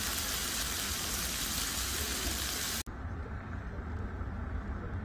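Beef sizzling on an electric grill pan, a steady hiss that cuts off abruptly almost three seconds in. After that only a quieter low rumble remains.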